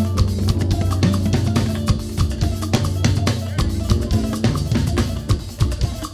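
Party band music led by drums: a dense drum kit and percussion pattern over a steady bass line, with no singing.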